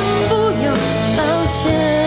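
A woman singing a Mandarin pop ballad live into a microphone over an instrumental backing track.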